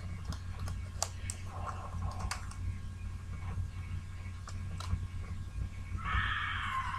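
Scattered light clicks and taps of plastic and silicone iPod touch case pieces being handled, over a steady low hum. A brief louder rustling noise comes near the end.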